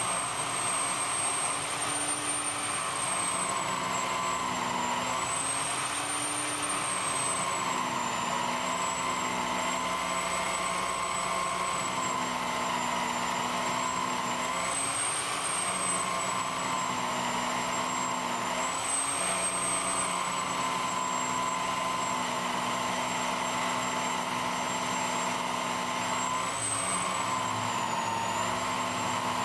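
A cotton buffing wheel on a bench motor runs steadily while a curly birch knife handle is buffed against it. Its whine wavers slightly in pitch every few seconds.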